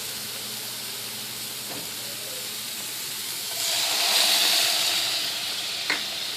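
Food sizzling in a hot pan, swelling into a louder hiss for about two seconds midway, with a light utensil click near the end.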